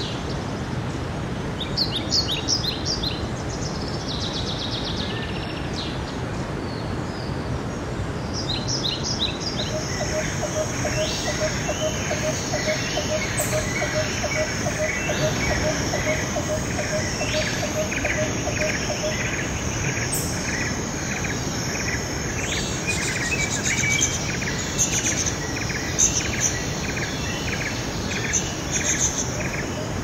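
Mountain stream running steadily over rocks, with birds calling over it: scattered chirps and trills, a low note repeated two to three times a second for several seconds in the middle, and a high thin steady note with rhythmic chirping from about a third of the way in.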